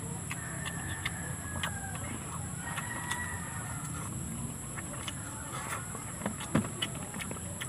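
Close-up eating sounds as food is taken by hand and chewed, a string of small clicks and smacks with one sharp click near the end. Under them, chickens cluck faintly over a steady background hum.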